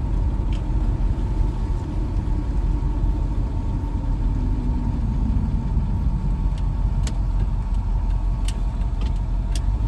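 Steady low engine and road rumble of a vehicle being driven, with a few faint clicks.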